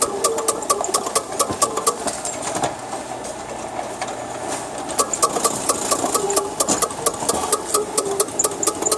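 Kubota seeding machine sowing onion seed, its mechanism clicking rapidly at about five clicks a second over a running motor. The clicking stops about two seconds in and starts again about five seconds in.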